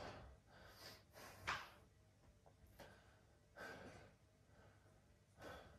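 Faint breathing of a man holding a side plank: about five short, sharp breaths, the loudest about one and a half seconds in.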